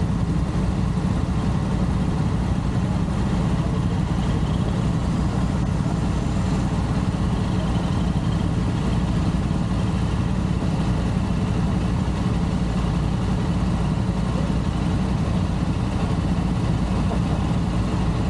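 Motorcycle engine idling steadily at an unchanging pitch.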